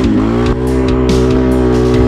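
Can-Am Renegade X-MR 1000R's V-twin engine running hard through mud at steady revs, dipping briefly just after the start and recovering, with music playing underneath.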